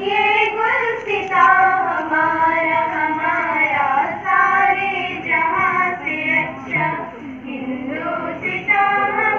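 A group of children singing together in unison, with long held notes.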